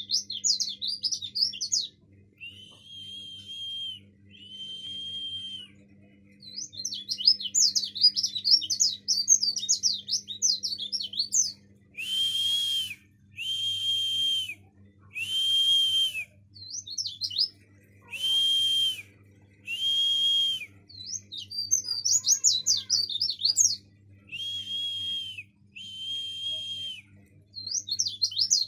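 Caged pleci dakun (white-eye) singing in the chattering 'ngomel' style: fast, jittery twittering phrases that alternate with runs of long, even, high notes about a second each.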